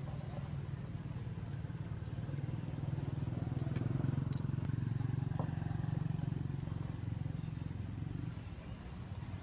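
Low engine hum of a motor vehicle, swelling to its loudest about four seconds in and easing off near the end, with a few faint clicks.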